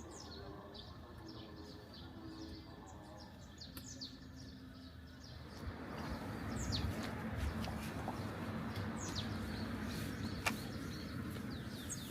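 Small birds chirping repeatedly with short, quick, falling calls. About halfway through, a steady rushing noise comes up underneath and becomes the loudest sound.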